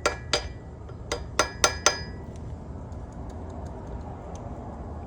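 Hammer tapping a steel flathead screwdriver wedged under a stuck engine main bearing cap, giving sharp ringing metallic clinks. There are about six strikes in the first two seconds, then only faint light ticks.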